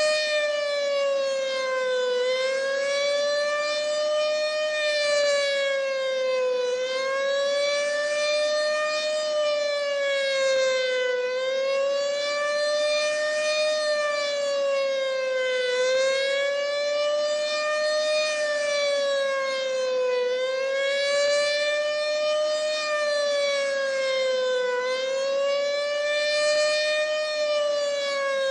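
American Signal OM-120 omnidirectional electromechanical warning siren sounding a steady, high tone with many overtones. Its pitch dips slightly and recovers about every four and a half seconds.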